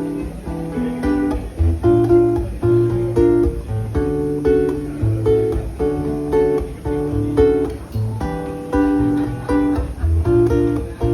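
Acoustic guitar strumming chords in a steady rhythm, with low bass notes underneath: the instrumental intro of the song before the singing comes in.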